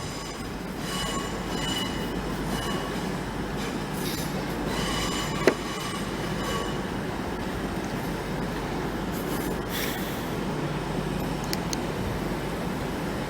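Train moving along the platform road, a steady rumble of wheels on rail with high wheel squeal coming and going, and a single sharp clank about five and a half seconds in.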